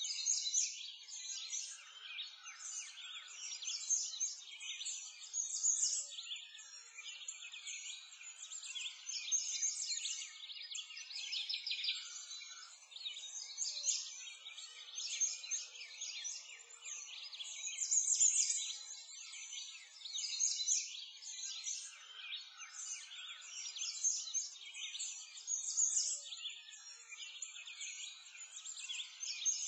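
A chorus of many small birds chirping and singing together without a break, all high-pitched, swelling and fading every couple of seconds.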